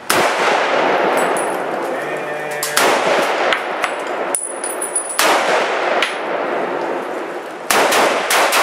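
M1 Garand rifle in .30-06 firing a slow string of single shots, about five, each followed by a long echo; the last two come closer together near the end.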